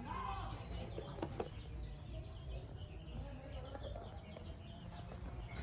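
Chickens clucking faintly, with scattered short calls over a low steady rumble.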